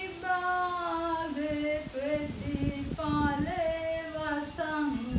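A woman singing a Sinhala drama song solo, without accompaniment, holding long notes that slide between pitches. Soft low thumps sound irregularly beneath the voice from about a second and a half in.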